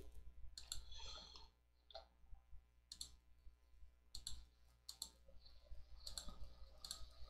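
Faint, irregular clicks of a computer mouse and keyboard, a dozen or so scattered short clicks.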